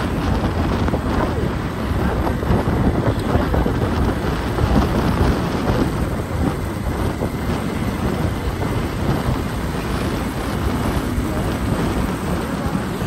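Wind buffeting the microphone of a camera moving along a busy road, a steady loud rumble with vehicle engine and traffic noise underneath.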